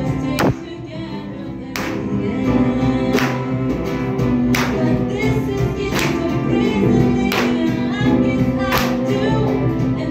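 Live acoustic ensemble: a woman singing into a microphone, backed by violin, cello, double bass, nylon-string guitar and upright piano, with a sharp percussive accent about every second and a half.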